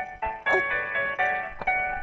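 Background music: a keyboard melody of single notes struck about every half second, each ringing on briefly.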